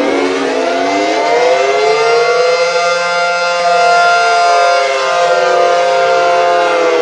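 Synthesized Cold War-era air raid sirens modelled on Federal 500T, 5/7T and SD-10 sirens with 9/12-port rotors, several wailing together. Each has a two-tone chord from its rotor. The pitches climb over the first couple of seconds, hold steady for a few seconds, then slide back down near the end.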